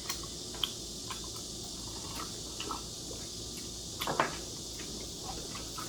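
Quiet eating sounds: sticky rice cake being chewed, with a few small soft clicks, the loudest about four seconds in.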